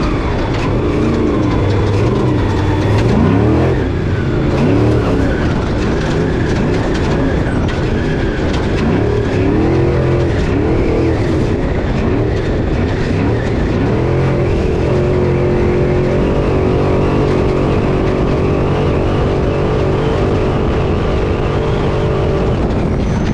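Off-road race truck's engine heard from inside the cab at race pace, its revs rising and falling again and again, then held at a steady pitch for the second half, over a constant clatter of knocks and rattles from the chassis.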